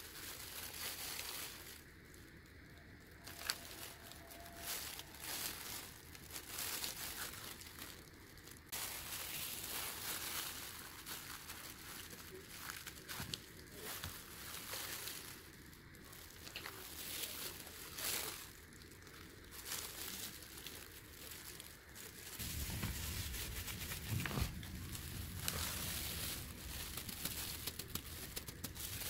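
Crinkling and rustling of thin plastic disposable gloves and newspaper as hands handle potting soil, seedlings and plastic plant pots, irregular and uneven, growing fuller and louder in the last several seconds.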